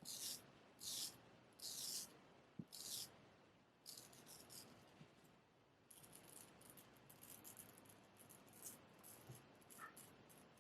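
Faint scraping of a Wade & Butcher straight razor cutting through beard stubble, in short strokes about one a second at first, then a run of fine crackling cuts.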